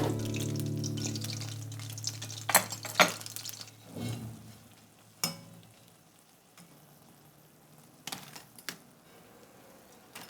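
Oil sizzling as batter-coated flower fritters fry, dying away over the first few seconds, with several sharp clinks of a utensil.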